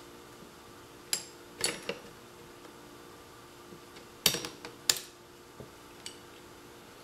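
Steel action parts of a Winchester 1873 lever-action rifle clicking and clinking as they are handled and worked into line for the axis screw. Two clicks come about a second in, then a louder flurry of clinks past the middle.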